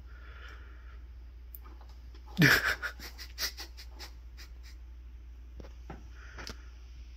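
Soft scuffs and taps of a cat rolling on her back on a hardwood floor. About two and a half seconds in comes a short, wheezy, breathy burst that drops in pitch, followed by a quick run of clicks.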